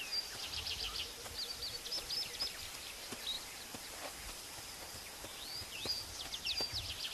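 Birds chirping and whistling: quick runs of short, high chirps that come in several spells, over a faint steady background hiss.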